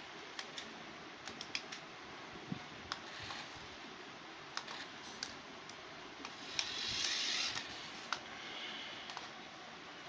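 Toy remote-control car being driven over a stone tile floor: irregular light clicks, with a brief whirring hiss about seven seconds in.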